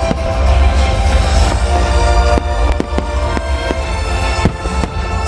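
Aerial fireworks shells bursting with a string of sharp bangs from about two seconds in, over music with a heavy, steady bass that accompanies the display.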